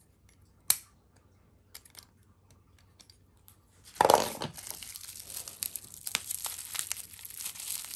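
Packaging wrap being torn open and unwrapped: a single sharp click about a second in, then about halfway a loud rip followed by steady crinkling and crackling.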